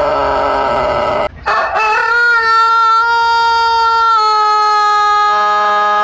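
Rooster crowing: one crow breaks off about a second and a half in, then a long drawn-out crow holds a steady note for several seconds.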